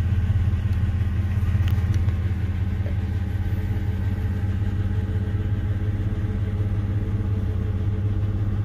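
Chevrolet S10 ZR2's 4.3-litre V6 idling steadily, heard from inside the cab.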